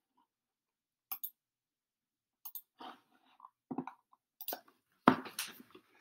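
A string of short clicks, knocks and rustles from a person shifting in a seat and reaching for something near the microphone, about half a dozen in all, with the loudest knock a little after five seconds in.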